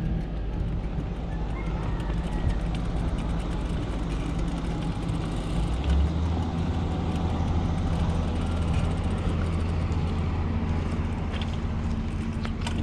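Motor vehicle traffic, with an engine running close by as a steady low hum that gets deeper and louder about six seconds in.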